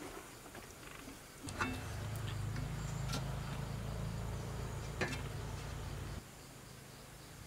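Light metallic clinks of aluminium idli steamer plates as rice-dough balls are set in and the plates are stacked, three or four sharp clicks in all. Under them a steady low hum starts suddenly about one and a half seconds in and cuts off about six seconds in.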